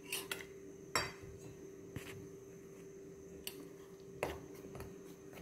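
Steel spoon stirring maida and rice flour with water in a stainless steel bowl, clinking against the bowl now and then with a few scattered sharp clinks.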